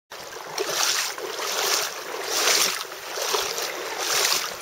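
Fast river water rushing, a steady hiss that swells and fades roughly once a second.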